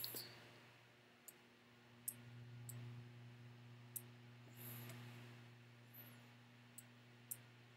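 Faint computer mouse clicks, about half a dozen scattered short clicks, over a low steady electrical hum.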